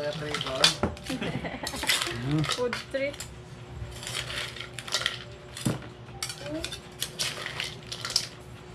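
Metal spoon scraping and clinking against an aluminium pan as cooked crabs in sauce are scooped out, in a run of irregular sharp clinks.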